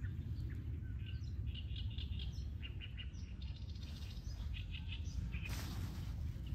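Wind rumbling steadily on the microphone while small songbirds give quick runs of short high chirps through the middle; a brief rushing hiss of wind comes in near the end.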